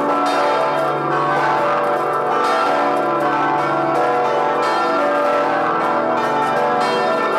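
Vilnius Cathedral belfry's large church bells ringing together in a full peal: strike after strike at an uneven rhythm, their tones overlapping and sustaining into one continuous clangour.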